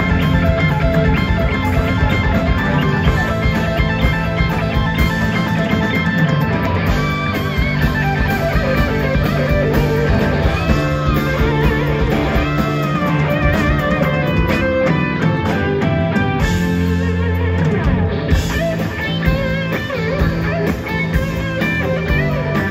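Live blues-rock band playing, an electric guitar taking a lead line of bent, wavering notes over bass and drums.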